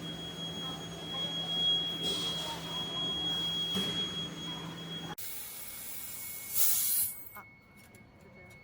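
1000 W handheld fiber laser welding and cutting machine at work: a steady high whine and low hum under a hiss, with short louder bursts of hissing. The sound changes abruptly about five seconds in, followed by one brief loud hiss and then a quieter steady whine.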